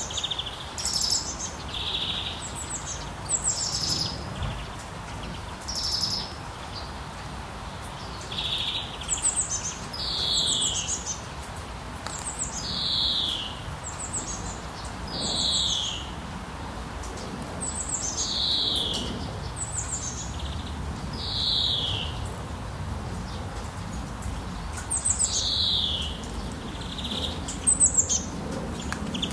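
A bird repeating a short call that falls in pitch, about every two to three seconds, over a steady hiss of rain.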